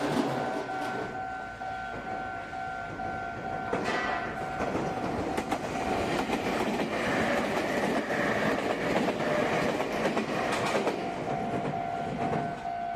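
Red Meitetsu electric commuter train running past close by, its wheel and running noise swelling about four seconds in and easing off about eleven seconds in. A level-crossing warning bell rings steadily, covered by the train in the middle.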